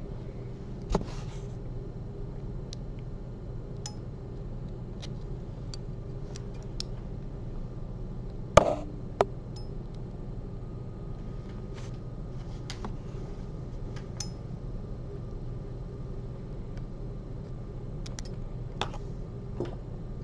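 A needle holder and forceps click and clink now and then as a patch is sutured onto a 3D-printed heart model, about a dozen short sharp clicks with the loudest a little before halfway. A steady low hum runs underneath.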